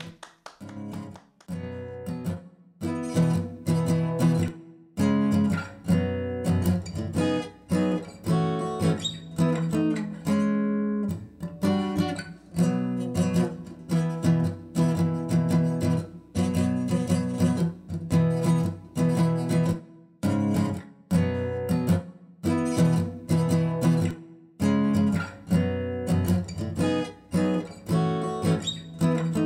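Instrumental music of chords strummed on a guitar, in phrases with short breaks between them.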